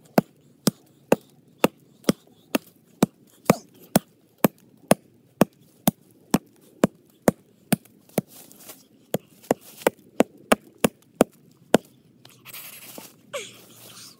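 Hatchet chopping into a tree trunk: sharp wooden blows, about two a second, for some twelve seconds. The blows stop near the end, followed by brief rustling.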